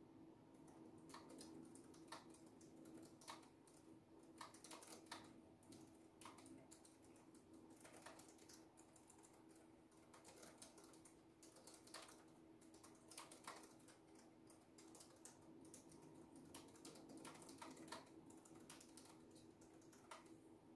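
Quiet typing on a computer keyboard: irregular runs of soft key clicks with short pauses between them, over a faint steady hum.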